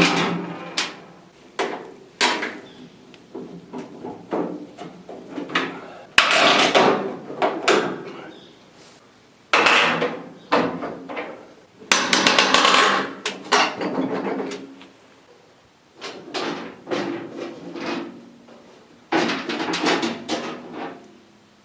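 Irregular knocks and clunks with stretches of scraping and rustling, the sound of hand work with tools and parts.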